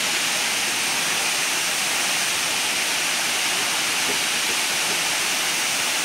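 Tall waterfall dropping down a rock face into a plunge pool: a steady, even rush of falling water.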